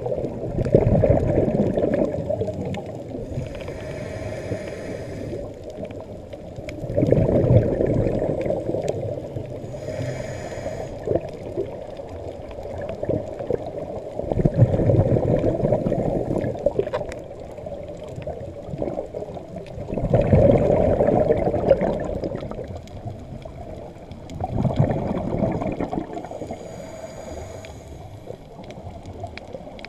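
Scuba regulator breathing heard underwater: a hissing inhalation through the regulator, then a loud bubbling rush of exhaled air, repeating about every five to seven seconds with five exhalations in all.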